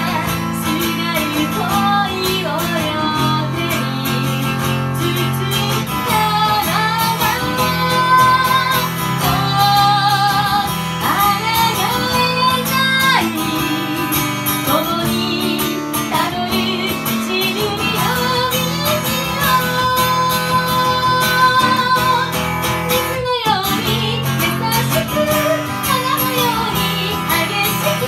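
A woman singing into a microphone over an acoustic guitar, which strums chords beneath her. Her long held notes waver with vibrato.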